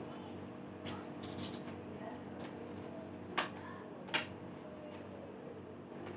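A handful of sharp clicks and taps over a steady low hum, the two loudest about three and four seconds in.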